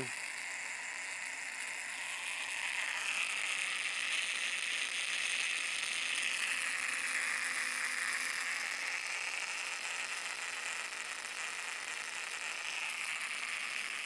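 Homemade biased reed-switch pulse motor running off a supercapacitor: its diametrically magnetized ring-magnet rotor spins steadily, making a rapid, even mechanical whir that drifts slightly in pitch.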